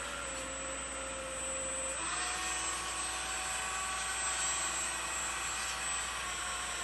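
Homemade metal RC hydraulic excavator's electric motors whining steadily, its hydraulic pump and worm-gear track drive running. The whine shifts to a higher pitch about two seconds in.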